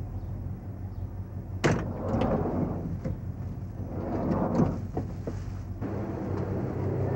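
A van's sliding side door: a sharp clunk about two seconds in, then the door rolling open, with more clunks and rustling a few seconds later, over a steady low hum.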